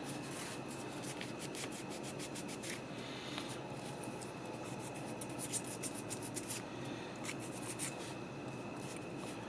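Quick, irregular scratching and rubbing strokes as the dimmer switch's electrical contacts are scrubbed clean of old grease and corrosion, over a faint steady hum.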